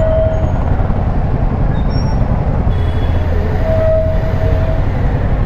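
Royal Enfield Himalayan 450 being ridden, with steady wind and engine rumble on the microphone. A thin steady whine comes in briefly at the start and again for about a second around four seconds in.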